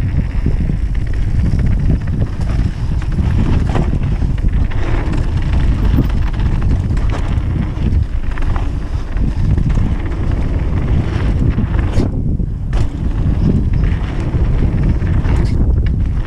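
Wind buffeting an action camera's microphone as a Commensal V3 downhill mountain bike rides fast down a dirt trail, a heavy steady rumble mixed with the tyres on loose dirt. A few sharp clicks and rattles from the bike come through, the clearest about twelve seconds in and near the end.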